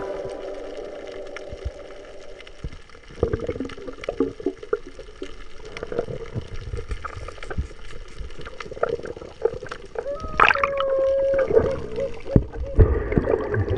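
Underwater sound picked up by a diver's camera on a reef: an irregular crackle of small clicks and knocks over bubbling water, with a short muffled held tone about ten seconds in.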